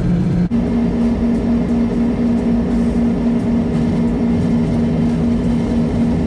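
A heavy engine of harvest machinery running at a steady speed, with a constant hum; its pitch steps up abruptly about half a second in and then holds steady.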